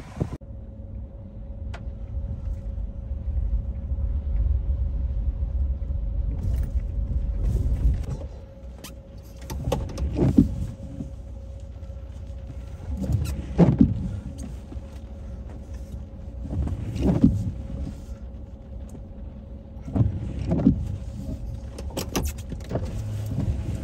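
Steady low rumble for about the first eight seconds. Then a heavy semi truck's diesel engine swells and fades four times, about three and a half seconds apart, as the truck drives slowly through floodwater.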